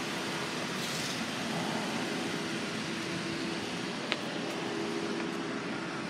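Steady outdoor background noise with a constant low mechanical hum, and one sharp click about four seconds in.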